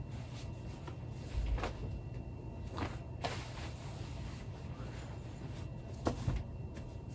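Denim jeans being handled, folded and set on a stack on a wire closet shelf: faint rustling of cloth with a few light knocks and clicks.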